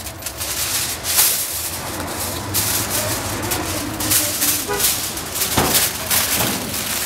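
A large sheet of aluminium foil crinkling and rustling in irregular crackles as it is lifted and crumpled by hand.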